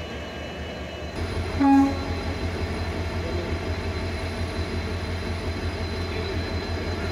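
A heavy diesel engine comes in about a second in and runs with a steady low throb; just after it starts there is a short, loud horn toot.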